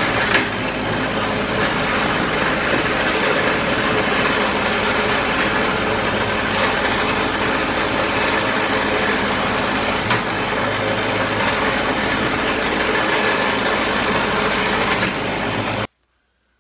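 Small 6.5 hp Harbor Freight gasoline engine running steadily, driving the pitman arm log splitter, with a few sharp knocks as pieces of firewood are split. The sound cuts off suddenly near the end.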